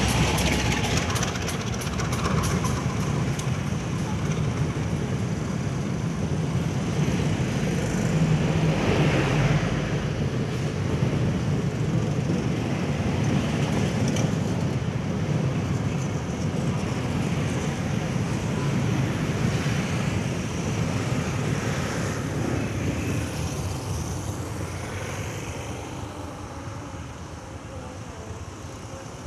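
Diesel-hauled passenger train passing close by, with a steady rumble of wheels on the rails. It fades over the last few seconds as the train runs away into the distance.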